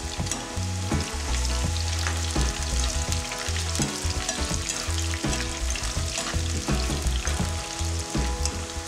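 Pointed gourd strips sizzling and crackling as they fry in hot oil in a pan, stirred about with a wire skimmer.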